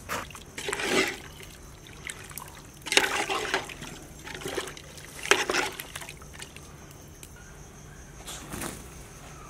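Ladle stirring and scooping soup in a metal cooking pot, the liquid splashing and trickling in four short bursts.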